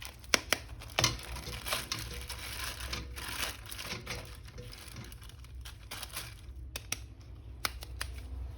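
Plastic wrapping crinkling and rustling as it is handled, with scattered sharp clicks, as a toy figure is unwrapped.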